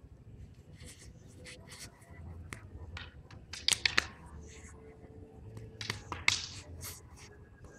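Arnis sticks swung in a two-stick drill: scattered sharp clicks and short swishes, with the loudest cluster of cracks about four seconds in and another around six seconds.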